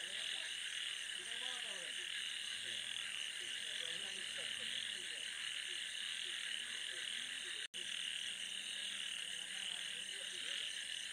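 Night chorus of frogs croaking in a wet paddy field: many short, rising-and-falling croaks over a steady high-pitched drone. The audio cuts out for an instant about two-thirds of the way through.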